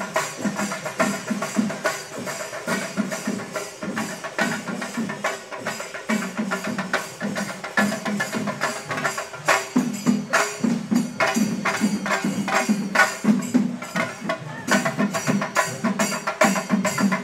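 Festival procession percussion: drums beaten in a fast, steady rhythm with jangling cymbals, growing louder about ten seconds in.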